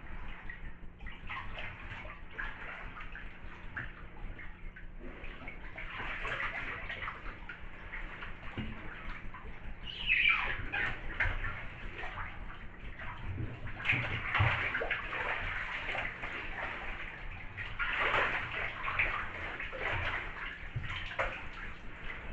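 Bathwater sloshing and splashing as a fully clothed person shifts about and gets up in a filled bathtub, with louder splashes about ten, fourteen and eighteen seconds in.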